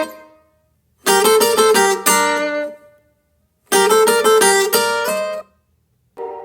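Short plucked-guitar music stings in a reggaeton-pop style, each a quick run of notes lasting about a second and a half, separated by silent gaps. Two full stings play, and a different, chime-like sound starts right at the end.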